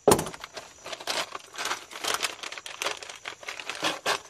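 Handling noise: dense, irregular crinkling and clicking as stiff electrical wires are worked by hand, starting with a sharp click.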